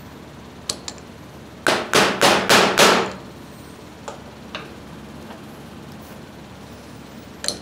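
A mallet strikes a steel seal driver about five times in quick succession, about two seconds in, driving a new upper seal into a tractor's power steering column housing. Later come a few light clicks of tools being handled on a metal bench.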